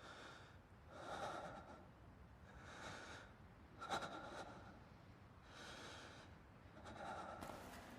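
Repeated heavy breaths, about one every second and a half, with a sharper, louder breath about four seconds in.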